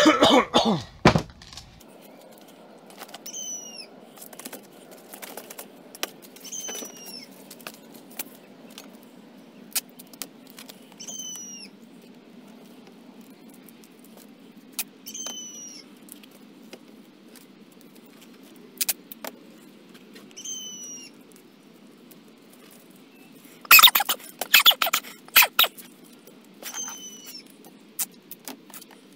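Black electrical tape being pulled off its roll and wrapped around a white plastic pipe: scattered clicks and handling noises, with a loud crackly stretch of tape being unwound and torn about three quarters of the way through. A small bird calls in the background, a short high falling chirp repeated every few seconds.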